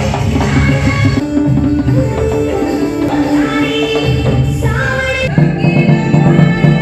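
Loud music with singing and percussion, for a stage dance. The song changes abruptly about a second in and again about five seconds in.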